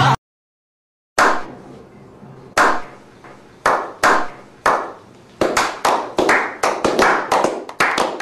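A small group's slow clap: after about a second of silence, single hand claps come roughly a second apart, then speed up into quicker, overlapping clapping over the last few seconds.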